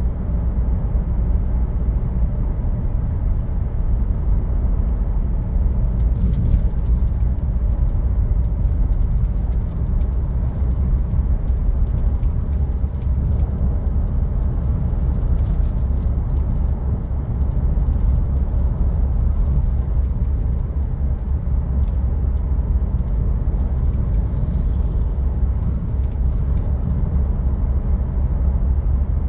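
Land Rover Discovery Sport being driven: a steady low rumble of engine and road noise that holds even throughout, with a few faint ticks.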